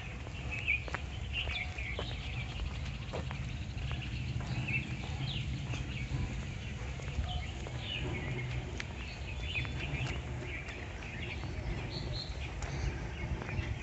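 Many small birds chirping and calling in short, repeated notes over a steady low rumble.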